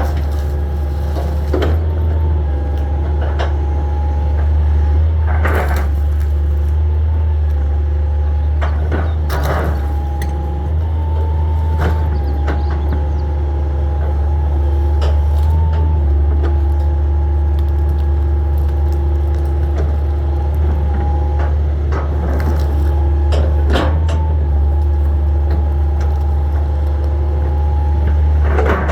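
Hitachi 225 tracked excavator working: its diesel engine drones steadily under load with a steady hydraulic whine that shifts slightly in pitch. About half a dozen sharp cracks and knocks come through as the machine handles wood debris.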